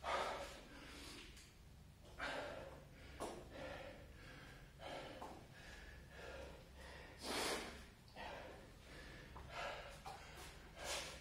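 A man breathing hard, with heavy breaths every second or two: out of breath and recovering just after a set of burpees.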